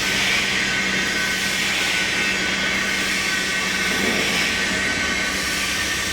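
Steady machinery noise: a constant hiss with a steady low hum and no separate knocks or events.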